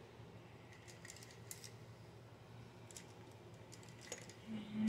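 Faint scattered clicks and light rattles of makeup brushes and small cosmetic items being picked through and handled, with a brief low steady hum near the end.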